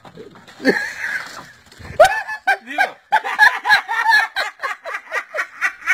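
People laughing hard, in quick repeated bursts from about two seconds in, after a loud vocal cry about a second in.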